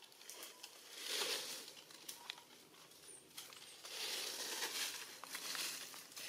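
Dry leaf litter crunching and rustling under walking macaques, in two longer bouts, about a second in and from about four seconds in, with a few sharp crackles between.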